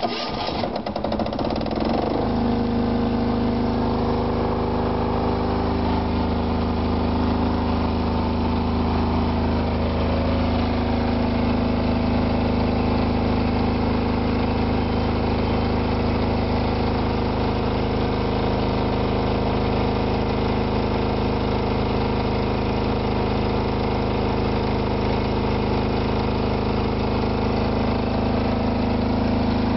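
5 kVA super-silent diesel generator set started on its key switch: the starter cranks for about two seconds, the engine catches, and it then runs steadily at governed speed with no load on the output.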